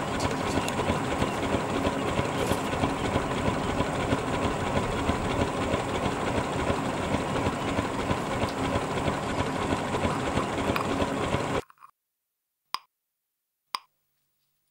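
Loud steady rushing noise, like a running engine, that cuts off abruptly a little under three-quarters of the way in, leaving near silence broken by two sharp clicks about a second apart.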